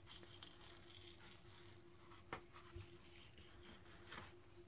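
Near silence, with faint scraping and a few soft clicks of a kitchen knife cutting the skin off a raw salmon fillet on a plastic cutting board, over a faint steady hum.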